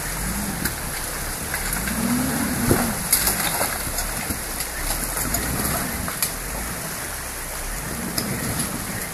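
A four-wheel-drive SUV's engine revs up and down several times as it crawls over river stones, over the steady rush of a shallow stream. There are a few scattered knocks.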